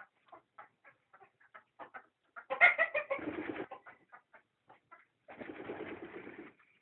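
Chickens clucking in short, soft notes, with one loud, pitched call about two and a half seconds in and a rougher, noisy sound lasting about a second near the end.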